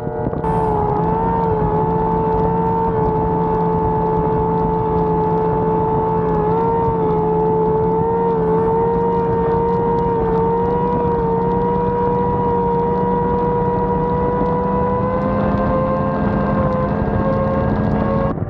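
Race boat engine running hard at high, steady revs, its pitch wavering slightly and slowly climbing.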